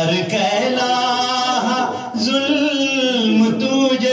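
A man singing solo into a microphone, drawing out long held notes that bend slowly in pitch, with a short break about two seconds in.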